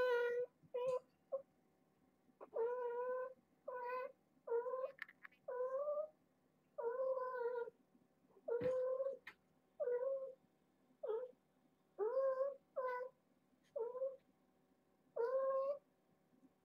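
Kittens meowing over and over in short, high calls, about one a second, many of them rising in pitch at the start.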